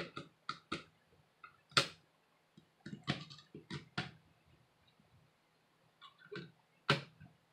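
Hand screwdriver clicking and tapping on small screws as the CPU heatsink on a laptop motherboard is tightened a little at a time. Irregular sharp clicks, the loudest about two seconds in and another near the end.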